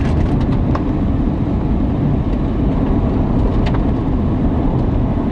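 Steady low rumble of road and wind noise from a moving chase vehicle, with a few faint clicks.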